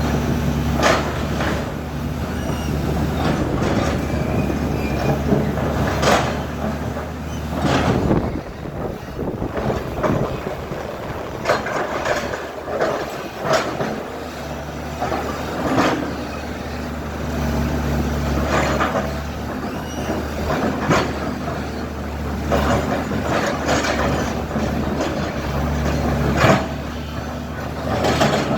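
Diesel engine of a JCB 3DX backhoe loader running under load, with repeated metallic clanks and knocks from the working machine. The engine's low steady note fades for a few seconds about a third of the way through, then returns.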